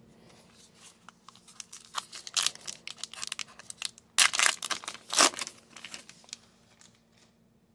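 Foil wrapper of a 2022 Topps Gypsy Queen baseball card pack being torn open and crinkled by hand: a run of irregular crackles, with the loudest tears about four and five seconds in.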